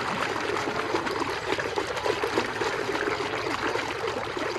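Water running and splashing steadily as a muddy toy car is washed clean.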